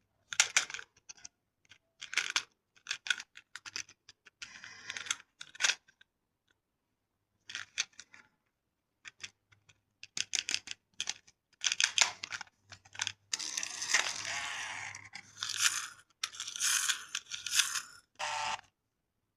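Irregular clicks, clacks and short scraping bursts from small plastic remote-control toy cars knocking together and skidding, the longest scrape about two thirds of the way through.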